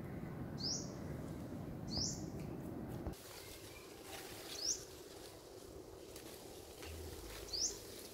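A bird repeating a short, high chirp that sweeps upward in pitch, four times, every two to three seconds, over a low background rumble that drops away about three seconds in.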